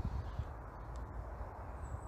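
Wind buffeting the microphone: a gust of low rumble at the start, easing into a steadier low rumble over faint outdoor background.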